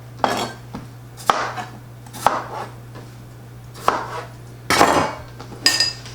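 Knife cutting potatoes into quarters on a cutting board: separate sharp chops about once a second, a longer scraping stroke about five seconds in, and a short ringing clink near the end.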